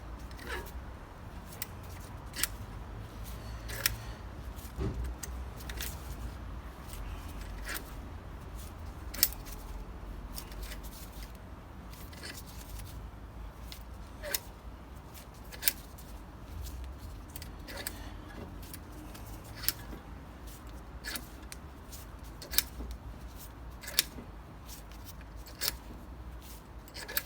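Brake piston rewind tool being worked against a front brake caliper piston to push it back: sharp metallic clicks at irregular gaps of about one to two seconds, over a steady low hum.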